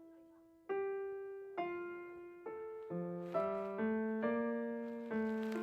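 Solo piano music: a slow melody of struck notes, each left to fade, with lower notes joining from about three seconds in.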